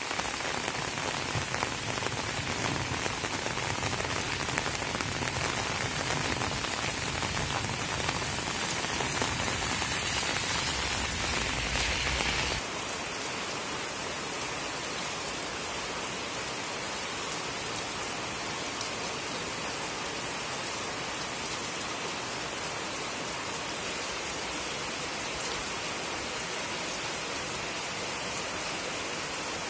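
Steady rain falling on a wet road, an even hiss. About twelve seconds in it drops suddenly to a quieter, thinner hiss with less low rumble.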